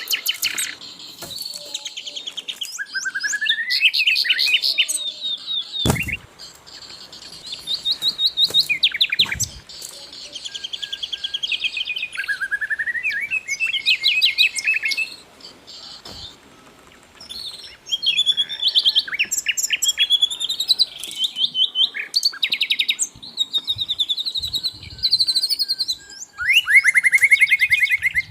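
Sikatan londo flycatcher singing a loud, busy song of rapid chirping trills and rising and falling whistled phrases, broken by short pauses. A brief low thump sounds about six seconds in, and again a few seconds later.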